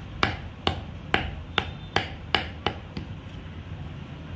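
Sharp taps of a small metal tool on the end of a wooden handle set in the eye of a sledgehammer head, driving the handle into the head. About seven knocks come a little under half a second apart and stop a little past halfway.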